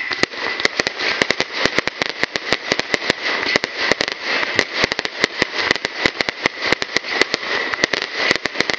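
A fireworks display going off in a rapid, continuous run of sharp bangs and crackles, several a second.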